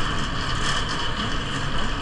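Gornergrat Bahn electric rack-railway train running, a steady rumble with a hiss over it.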